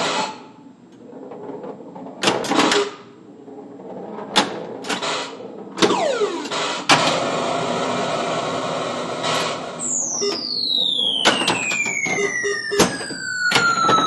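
Pinball machine sounds: sharp mechanical clicks and knocks of flippers and bumpers, a short falling electronic tone about six seconds in, and a steady rattling noise from about seven to nine seconds. From about ten seconds a long, slowly falling electronic tone plays while the knocks go on.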